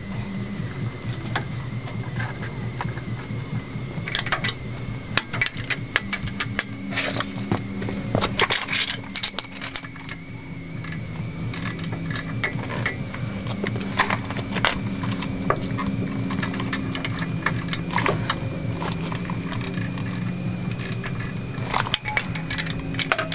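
Metal tools and parts clinking and knocking against each other, over a steady hum.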